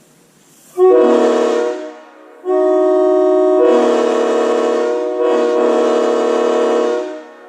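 Three air-blown locomotive train horns, a Leslie S3E, a Leslie S3J and a Nathan K3H, sounded together as a loud multi-note chord: a short blast about a second in, then a long blast of about four and a half seconds whose chord shifts twice as horns drop in and out. Faint echoing horn tones linger before and after the blasts.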